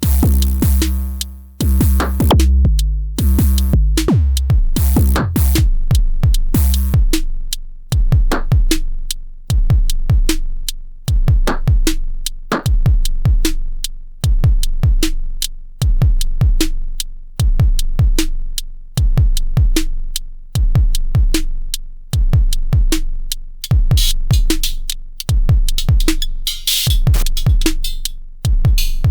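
Elektron Syntakt drum machine playing a looping electronic drum pattern: steady kick drums and sharp percussive hits over a deep bass tone. For the first seven seconds or so heavier pitched low notes sound, and a noisy hi-hat or cymbal wash comes in near the end.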